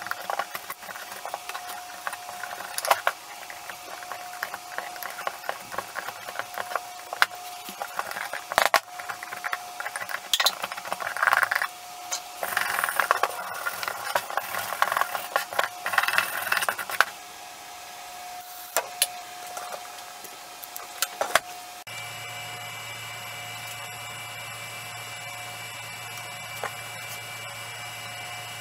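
A hand tool scraping and picking loose, punky wood out of a rough cedar blank: irregular scratches and sharp clicks of the tool and chips on the wood. About 22 s in, this stops and gives way to a steady hum.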